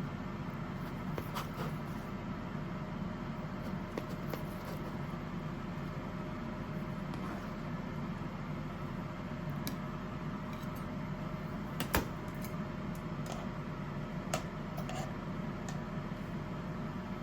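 Steady low hum of a running kitchen appliance, with a few light clicks and one sharper knock about twelve seconds in.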